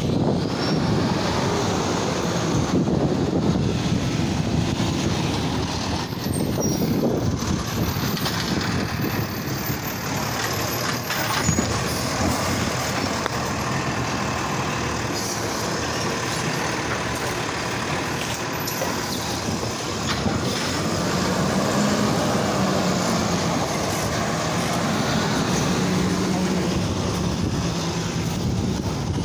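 Automated side-loader garbage truck running at the curb, its hydraulic arm lifting and emptying a trash cart, with a few brief knocks from the arm and cart.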